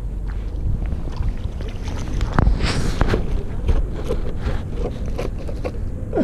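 Wind buffeting the microphone over a steady low rush, with scattered small clicks and a brief louder hiss about two and a half seconds in.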